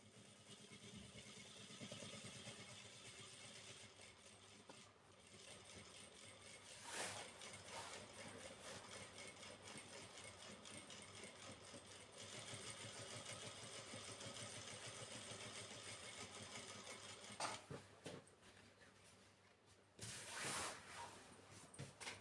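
Electric sewing machine running in long stretches, its needle working in a fast, even patter as it stitches curtain fabric. It stops briefly near the end, then starts again with a short, louder burst.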